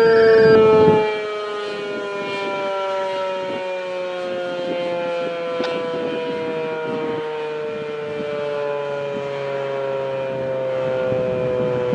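American Signal T-128 rotating warning siren sounding a single tone with many overtones. It drops in level about a second in, then its pitch slides slowly lower as it winds down.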